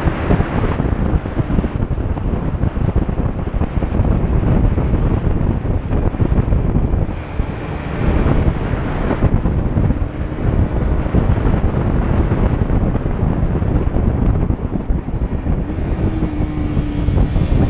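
Wind buffeting the microphone on a moving motorcycle, with the engine running underneath. A steady hum joins in near the end.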